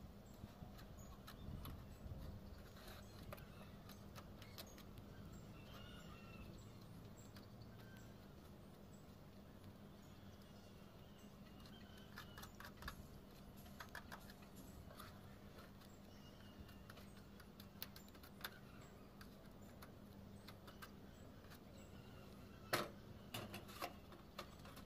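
Mostly quiet, with faint scrapes and light clicks of a putty knife spreading sealant on a corrugated metal roof, and one sharper knock near the end.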